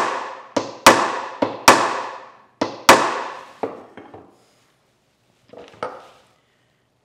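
A hammer tapping a wooden block held against a glued dovetail joint, driving the tails home to close a gap at the glue line. There are about seven sharp knocks, lighter and harder ones alternating, then two fainter knocks near the end.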